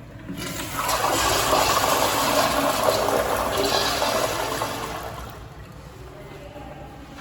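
2002 Crane Plumbing toilet flushing: a rush of water that starts about half a second in, holds for about four seconds, then fades away.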